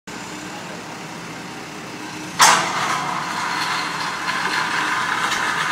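A telehandler's diesel engine running, then a sudden loud rush of noise about two and a half seconds in that carries on steadily.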